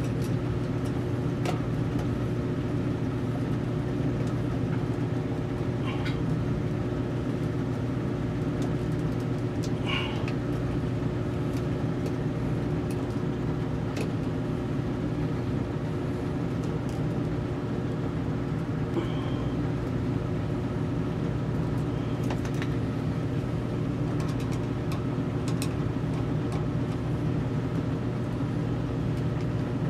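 A steady low hum with several fixed tones, unchanging throughout. Over it, a few faint clicks of pliers and a screwdriver against the metal terminals of a well pump pressure switch as wires are fitted.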